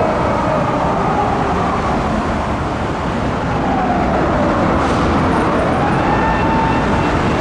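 Police car siren wailing in slow rising and falling sweeps over steady traffic and road noise, with a brief sharp click about five seconds in.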